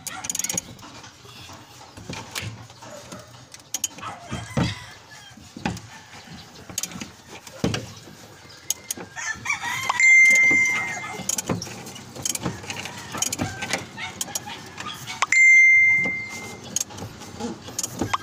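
A rooster crowing three times, each a loud held call. Between the crows come scattered light metallic clicks and knocks from hand work on the car.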